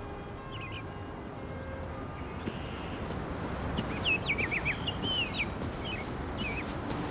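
Outdoor ambience: a steady, rapidly pulsing insect trill, with a burst of bird chirps about halfway through over a low background rumble.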